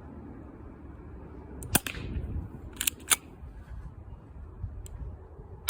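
Airsoft M1911 A1 pistol firing 6 mm BBs in single sharp cracks: one about two seconds in, two in quick succession a second later, and another at the end, over a low rumble.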